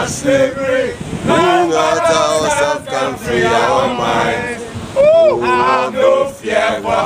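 A group of men singing and chanting together, several voices at once, with one loud swooping call about five seconds in.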